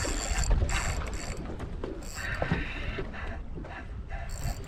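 Fishing reel's drag buzzing in spurts as a hooked false albacore runs and pulls line off against it.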